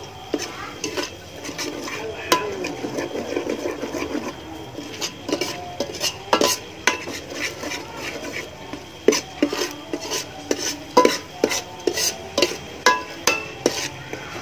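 Metal spoon stirring a thick mixture in a large metal pot, clinking against the pot again and again, the clinks coming more often from about halfway in.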